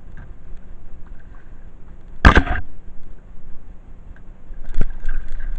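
Kayak paddle stroke: one sudden, loud swish and splash of the blade in the water about two seconds in, with a single sharp click near the end, over a low wind rumble on the microphone.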